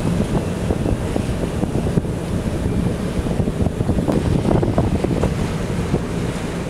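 Steady wind buffeting the microphone on the open deck of a whale-watching boat at sea, with the rush of water and the boat's running noise underneath.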